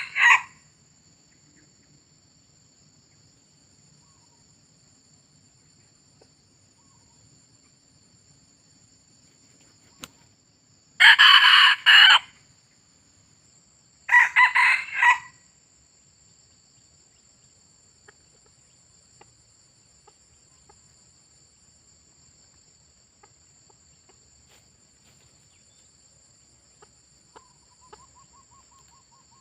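Red junglefowl roosters crowing: the end of one crow at the very start, then two short crows about three seconds apart. A steady high insect buzz runs underneath.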